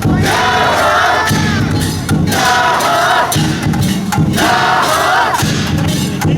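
A group of float pullers shouting a rhythmic call-and-response chant: a higher shouted call answered by a lower, heavier group shout, trading back and forth about once a second.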